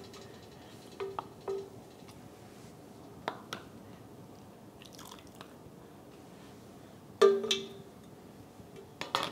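Ladle and plastic funnel clinking against a stainless pot and a glass canning jar as hot broth is ladled into the jar: a handful of light taps with brief rings, the loudest about seven seconds in.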